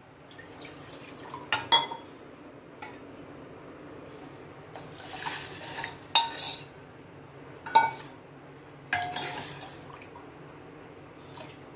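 Water poured from a steel bowl into a steel pot of dal in a few pours, the strongest about halfway through, with a steel ladle clinking against the pot and stirring in between.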